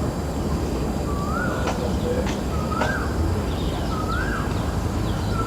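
A bird repeating the same short whistled call about every one and a half seconds, each note rising and then falling, over a steady low background rumble.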